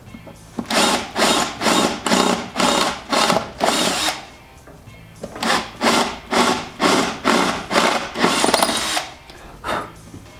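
Power drill with a 4.5 mm bit boring rivet holes through the vehicle's pillar, run in short pulses about two a second, with a pause of about a second around four seconds in.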